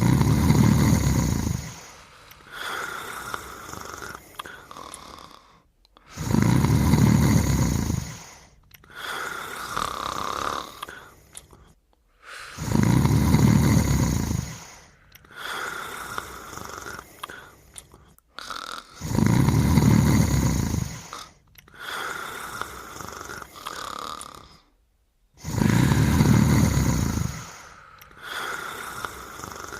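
Deep, rhythmic snoring of a sleeper: five loud snores about six seconds apart, each about two seconds long and followed by a softer breath.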